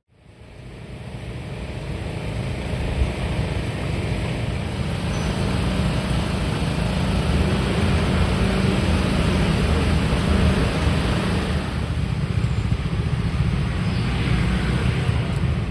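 Steady rumble of a moving motor vehicle, heavy in the low end, fading in over the first couple of seconds.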